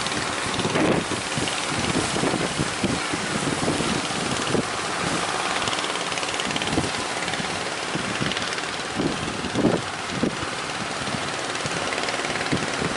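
Strong wind buffeting the microphone in irregular gusts over a steady rushing noise of rough sea.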